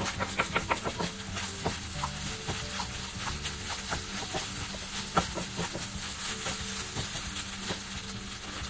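Wooden spatula scraping and tapping against a nonstick pan as fried rice is stirred, with many short scrapes and taps, thickest in the first second, over a steady sizzle of frying.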